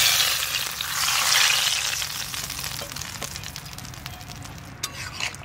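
Hot mustard-oil tempering of nigella seeds, dried red chillies and bay leaves poured into a pot of fish curry, sizzling loudly at once and dying away over a few seconds. A few light clicks come near the end.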